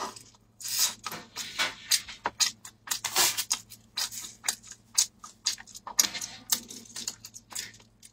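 Biting and chewing sweet corn kernels off the cob: a string of short, crisp crunches, with a paper napkin rustling about halfway through.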